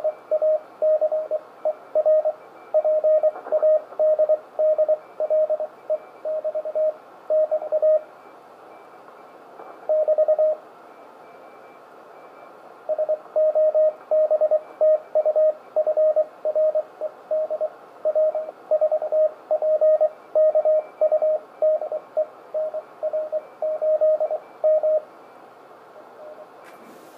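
Morse code (CW) signal received off the air on the 20-metre amateur band: a steady mid-pitched tone keyed in dots and dashes over a hiss of band noise. The sending pauses for a few seconds midway, then resumes and stops a couple of seconds before a sharp click at the very end.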